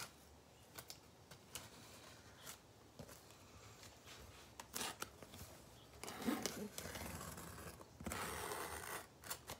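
Faint scraping and tearing of packing tape on a cardboard box as it is slit and pulled open, with scattered light clicks; the longest, strongest scraping comes near the end.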